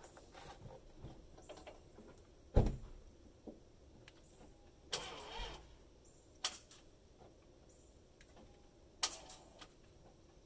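Lexus IS300 with a flat battery failing to start. A heavy thump comes about two and a half seconds in, a brief buzz around five seconds, and sharp clicks at about six and a half and nine seconds, with no cranking and no engine running.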